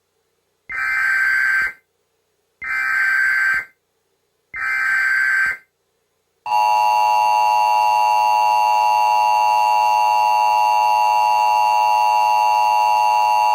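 Emergency Alert System tones. Three roughly one-second bursts of the SAME digital header play, each a harsh data warble, followed about six seconds in by the steady, loud two-tone EAS attention signal, which holds on.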